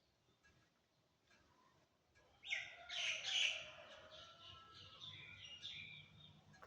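A bird singing: a loud burst of quick, varied notes starts about two and a half seconds in, then trails off into softer twittering.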